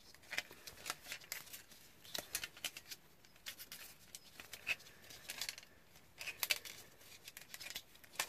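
Flat steel recoil-starter spring being wound by hand into a plastic starter pulley: a run of small, irregular clicks and scrapes of metal on plastic.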